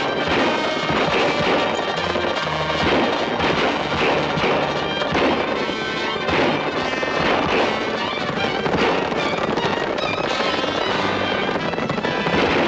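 Dramatic orchestral chase music from a 1940s film soundtrack, with repeated gunshots cracking over it.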